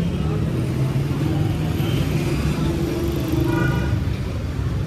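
Street traffic: engines of cars, motorcycles and auto-rickshaws running close by as a steady low rumble, with a short high tone about three and a half seconds in.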